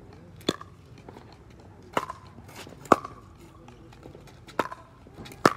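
Pickleball paddles hitting a plastic ball in a rally: five sharp pops at uneven spacing, each with a short hollow ring.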